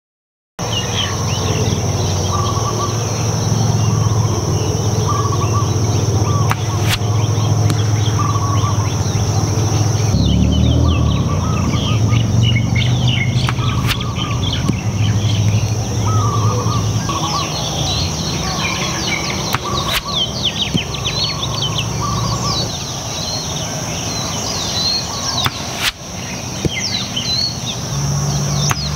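Compound bow shots outdoors: a few sharp snaps several seconds apart as arrows are loosed downrange. Continuous birdsong chirping, a steady high buzz and low rumble run underneath.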